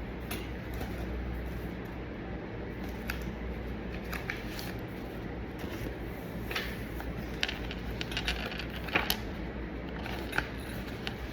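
Steady low room hum with scattered light clicks and taps, more of them in the second half and loudest around nine seconds in.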